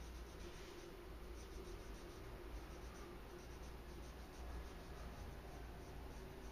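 Faint strokes of a drawing pen on a paper sketchpad, the loudest stroke about half a second in, over a low steady hum.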